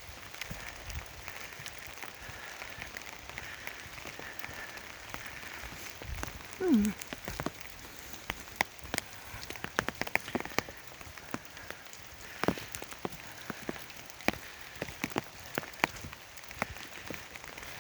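Raindrops pattering on an umbrella overhead, irregular sharp ticks over a soft hiss of rain. A brief, louder, falling-pitched sound stands out about a third of the way in.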